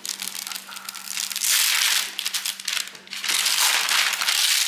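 Sheet of baking paper crinkling and rustling as it is peeled back off hardened dalgona sugar-candy discs. It comes in two long stretches, one starting about a second and a half in and another about three and a half seconds in.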